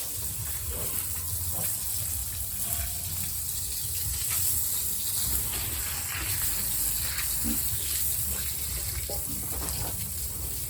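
Running water gushing steadily, as when a pen floor is washed down.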